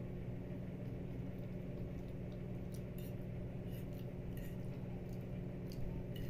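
A person chewing a mouthful of spaghetti while a metal fork clinks lightly against the plate several times in the second half as more noodles are twirled, over a steady low hum.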